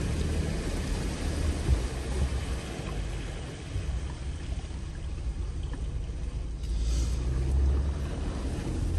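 Jeep engine and drivetrain running with a steady low rumble and trail noise, heard from inside the vehicle. A brief hiss comes through near the end.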